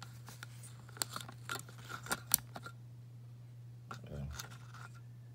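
Sharp clicks and clacks of the gauntlet prop's hard parts being handled and fitted together, about five in the first half, the loudest a little after two seconds in.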